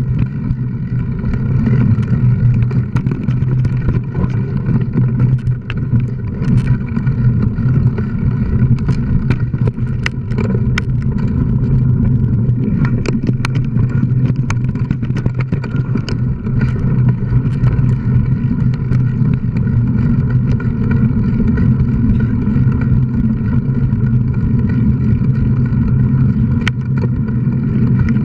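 Mountain bike ridden fast over a dirt trail, heard from a camera riding on the bike or rider: a steady low rumble of wind and tyres, with scattered clicks and knocks as the bike goes over bumps and roots, most of them around the middle.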